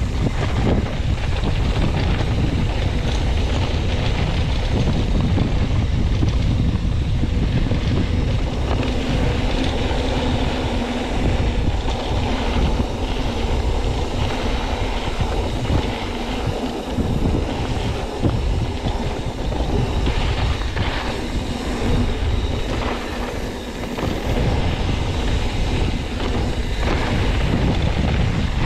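Wind rushing over the camera microphone while a YT Capra mountain bike rolls fast down a dirt trail, tyres rumbling on the dirt and the bike rattling and clicking over bumps.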